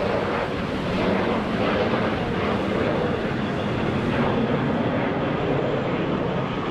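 CT-114 Tutor jet flying overhead: the steady rush of its single J85 turbojet engine.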